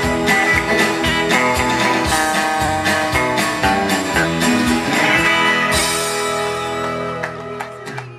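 Song's instrumental ending: guitar over a steady drum beat, fading out near the end.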